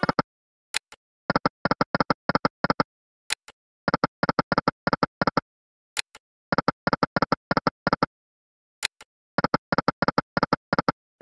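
Electronic sound effects from the EGT 'Lucky & Wild' slot game as the reels are spun repeatedly with no win. Each spin gives a sharp click followed by a quick run of short beeping tones as the reels spin and stop, four times about every 2.7 seconds.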